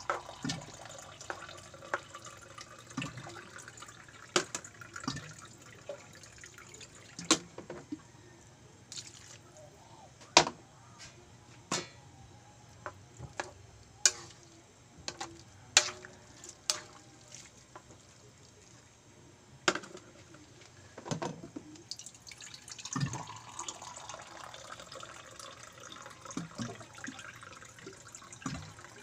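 A metal cooking utensil clinks sharply and irregularly against metal cookware, over a soft wet sound of pancit noodles cooking in a wok with a little added water.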